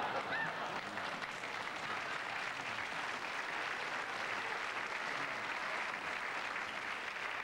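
Audience applauding steadily after a joke, a dense, even patter of many hands clapping.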